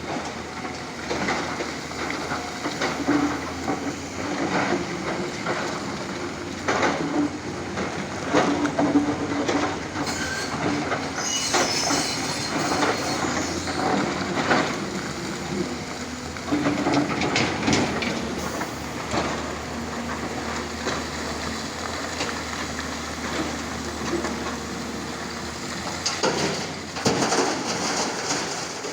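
Heavy excavator at work: a diesel engine running steadily under load, with frequent irregular metallic clanks and clatter and brief whining tones that come and go.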